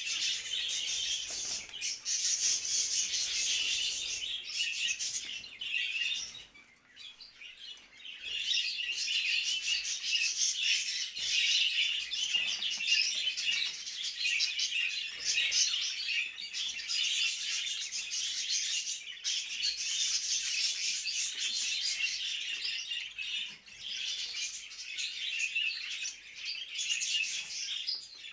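A flock of budgerigars chattering and warbling together in dense, continuous twittering, the breeding-season chatter that budgie keepers play to bring birds into breeding condition. The chatter fades briefly about seven seconds in and dips again shortly before the end.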